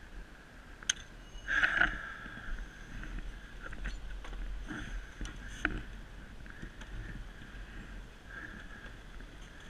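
Knocks, clicks and a short scrape from a fallen Aprilia sport motorcycle being grabbed and lifted back upright by hand. The loudest is the scrape, about a second and a half in, over a faint steady background.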